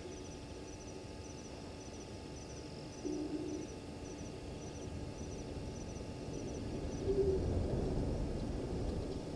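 An owl hooting twice, two short low hoots about three and seven seconds in. A faint high chirping in short groups repeats throughout.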